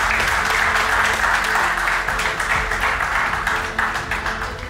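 A roomful of people applauding, the clapping thinning out near the end.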